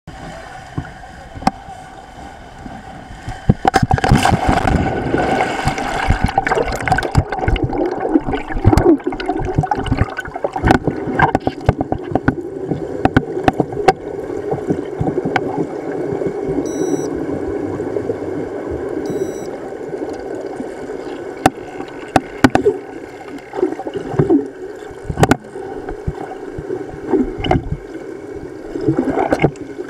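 Muffled underwater water noise: irregular bubbling and gurgling with frequent sharp clicks, quieter for the first few seconds and louder after that.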